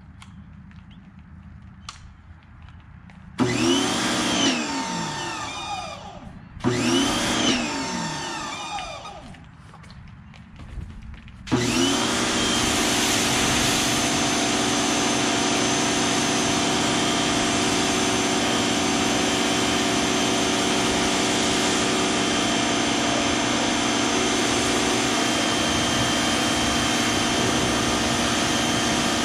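Greenworks 2000 PSI electric pressure washer motor: it starts twice briefly, each time whining up and then winding down, and then runs steadily with a constant whine.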